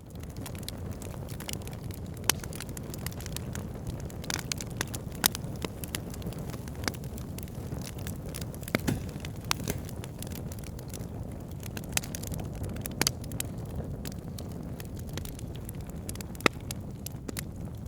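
Wood fire crackling in a fireplace: a steady low rumble of flames with frequent small crackles and a few louder sharp pops.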